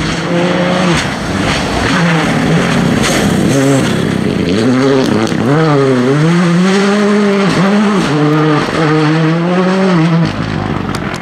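Ford Fiesta Rally2's engine at full throttle on a gravel stage, the revs climbing and dropping sharply several times through the bend. The engine note falls away about ten seconds in.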